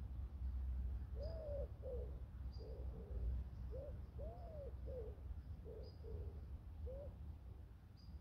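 A bird calling at the lakeside: a run of about nine short, low, pitched notes, some rising and falling, that start about a second in and stop near the end. Under them is a steady low rumble.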